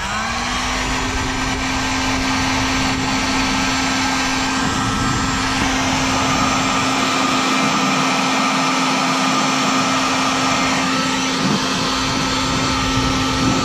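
Electric heat gun switched on and running steadily, its fan motor giving a steady hum over a rush of blown air. It is being used to shrink heat-shrink tubing over freshly joined wiring connections.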